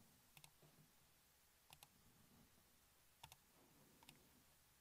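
Near silence with four faint double-clicks of a computer mouse, spaced about a second apart.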